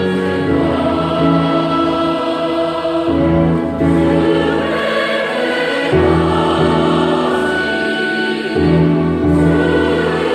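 A choir singing a hymn with instrumental accompaniment, in long held chords that change every few seconds.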